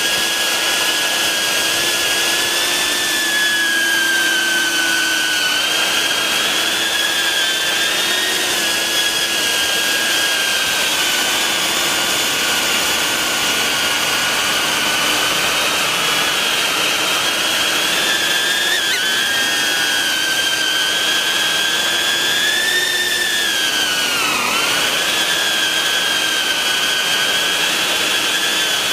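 BetaFPV 95X V3 quadcopter's brushless motors and propellers whining steadily as it flies, heard from a camera mounted on the drone. The pitch wavers with throttle, drops sharply and climbs back about 24 seconds in, and there is a brief tick near 19 seconds.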